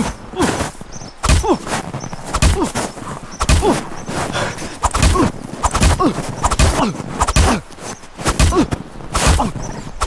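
Violent struggle: a fast, irregular run of heavy thuds and blows, each with a short grunt or cry from a man that falls in pitch.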